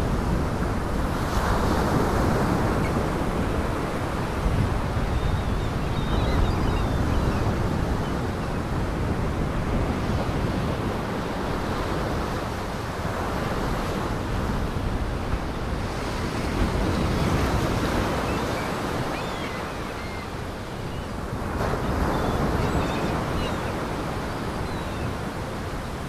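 Heavy storm surf, waves breaking and washing in surges that swell and ease every few seconds, with wind.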